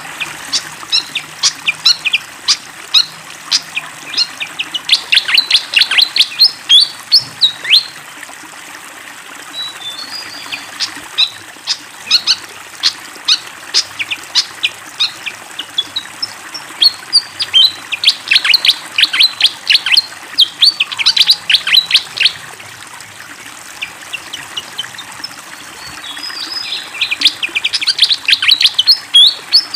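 A fantail (sikatan kipas) singing vigorously: rapid runs of sharp, high chirping notes in repeated phrases, thinning out briefly between bursts, over a steady background of flowing water.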